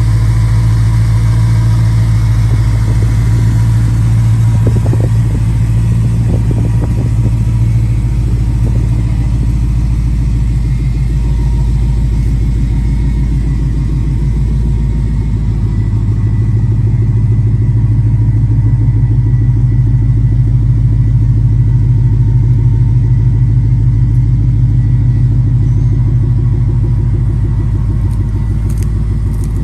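2013 Ford Mustang GT's V8 running steadily through an aftermarket American Thunder exhaust, with a few brief knocks about five to seven seconds in.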